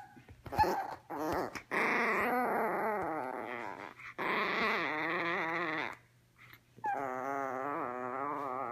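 Teacup Yorkshire terrier puppy whine-growling with a ball held in its mouth: long, wavering drawn-out calls, three of them after a short one, with a pause of about a second before the last.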